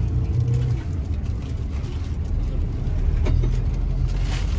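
Bus engine running, a steady low rumble heard from inside the passenger cabin.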